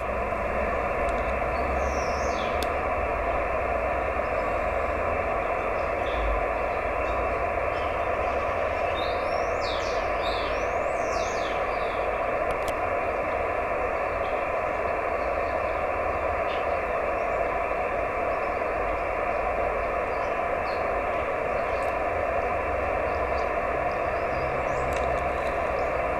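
Steady band-limited hiss of SSB receiver noise from an Icom IC-910H on 432 MHz, the background noise in which the weak moonbounce (EME) signal is being received and decoded by the computer.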